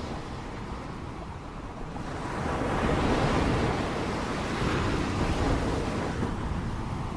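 Ocean surf: waves breaking and washing up a sandy shore, a steady rush that swells louder a couple of seconds in and eases slightly near the end.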